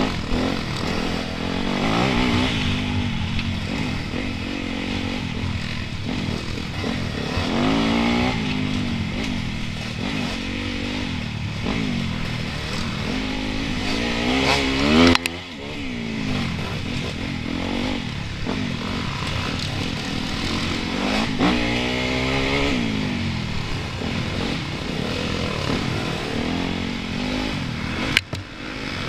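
Enduro motorcycle engine under way, heard close up from the bike itself, revving up and down over and over as the throttle is worked. The sound drops away briefly just after the halfway point and again near the end.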